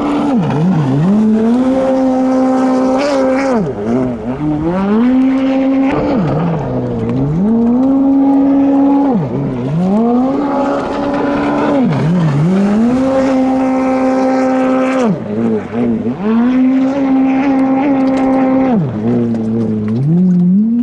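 Stand-up jet ski's engine running at high revs on the straights, the pitch falling off sharply and climbing back each time the throttle is eased for a turn, about six times.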